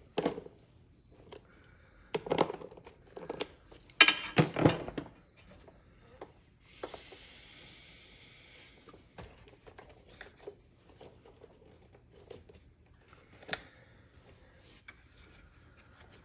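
Hand tools and small parts clicking and knocking in irregular handling, the loudest knocks a couple of seconds in and again about four seconds in, with a steady hiss lasting about two seconds near the middle.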